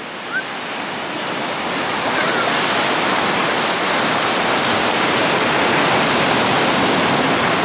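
Steady rushing water, like a waterfall or a rapid stream, growing louder over the first two seconds and then holding even.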